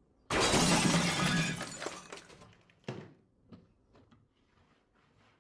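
A sudden crashing, breaking noise about a third of a second in, fading away over about two seconds, then a single knock and a few light clicks.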